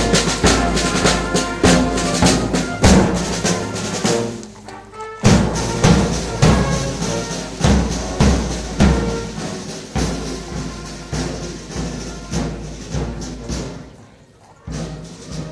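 Band music: brass with a steady, regular drum beat, dipping briefly about four seconds in and again near the end.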